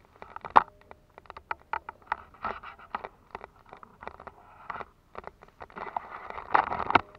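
Close handling noise on the camera: irregular rustling, scraping and knocks as it is bumped and shifted, with a sharp knock about half a second in and a louder scraping stretch near the end.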